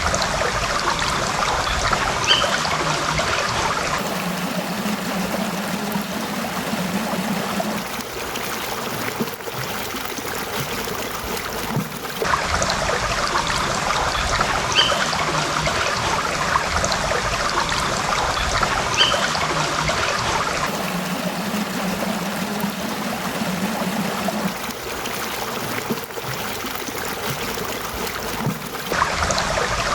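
Stream water trickling and babbling in a steady rush. The sound of the water changes abruptly about every eight seconds, between fuller and thinner stretches.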